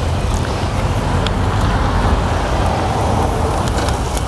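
Steady low rumbling outdoor noise, with a few faint clicks as a foil tray is set down on the grill grate.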